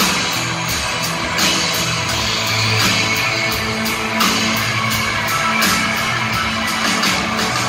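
Live rock band playing: electric guitar over drums keeping a steady beat of cymbal hits.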